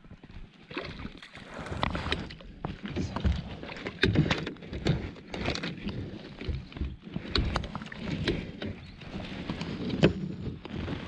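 Irregular knocks and clatter with water noise on and around a Tucktec folding kayak on the water.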